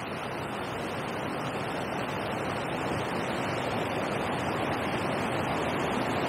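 Water rushing over a river weir: a steady, even rush of white water, growing slightly louder towards the end.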